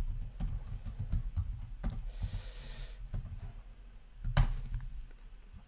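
Typing on a computer keyboard: a run of quick keystrokes, with one louder key press about four and a half seconds in.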